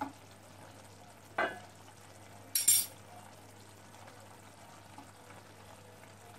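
Fish curry simmering in a pan with a faint sizzle while a silicone spatula stirs it. A short soft knock about a second and a half in, then a sharp metallic clink, the loudest sound, about two and a half seconds in.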